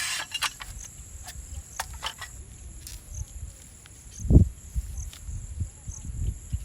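Insects, crickets or cicadas, keeping up a steady high drone with faint chirps repeating about once a second. Low rumbles sit underneath, with one louder low thump about four seconds in.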